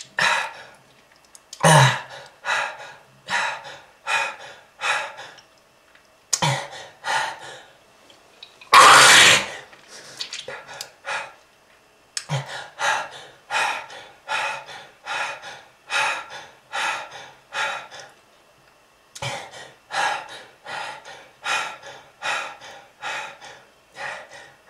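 A person coughing in long fits of short, harsh coughs, about two a second, with brief pauses between fits. There is one longer, louder hacking cough about nine seconds in. The cough is presented as the sign of a smoker's lung disease.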